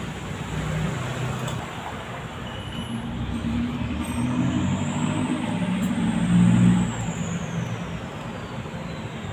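A motor vehicle passing close by: its engine rumble swells to a peak about six and a half seconds in and then fades, with a high whine that rises and then falls in pitch as it goes past.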